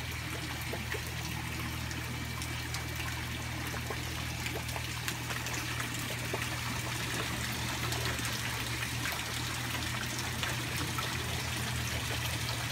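Water from a garden fountain's spout pouring and trickling steadily into a pond, with scattered small splashes and a low steady hum underneath.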